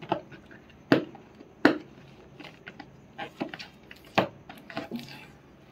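Takeaway meal box being unsealed by hand, its tape pulled off: several sharp clicks and taps, with quieter rustling between.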